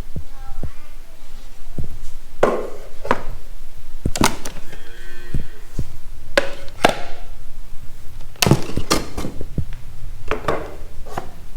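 About a dozen irregular wooden knocks and thuds, sharp and sometimes with a short ring, as wooden beehive boxes and frames are handled and fitted together.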